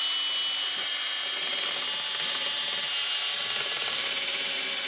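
Small wire wheel brush spinning in a drill, running steadily against the steel backing plate of a drum brake: a high whine and hiss as it scrubs rust off the shoe contact pads before they are lubricated.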